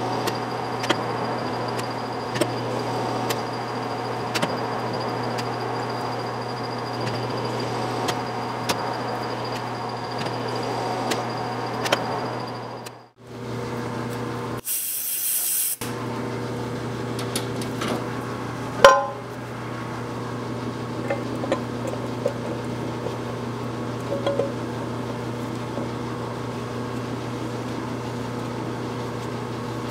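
Metal lathe running with a steady hum and scattered light ticks, cutting off suddenly about 13 seconds in. About a second later comes a short blast of compressed air from an air hose, then one loud metallic clank a few seconds after, and the steady hum carries on.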